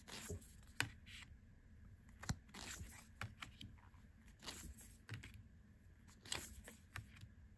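Matte-finish cardstock tarot cards being flipped through by hand, the front card slid off the deck one at a time: quiet, irregular sliding scrapes and light clicks.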